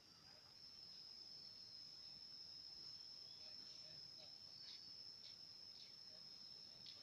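Faint, steady, high-pitched insect drone, with a few brief faint chirps over it from about three seconds in.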